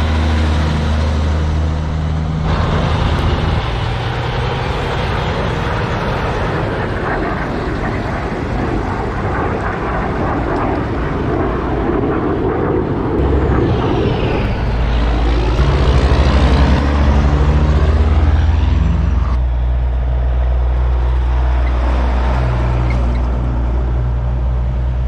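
Diesel semi-trucks driving past at low speed one after another, their engines giving a low, steady note over tyre noise. The loudest pass comes about two-thirds of the way through.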